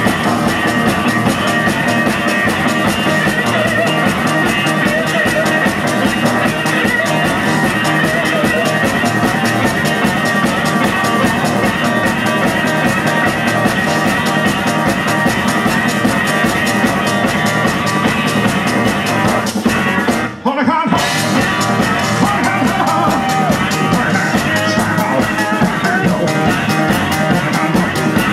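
A live country-blues band playing a loud, driving instrumental stretch on guitar and drums. The music drops out for a split second about two-thirds of the way through.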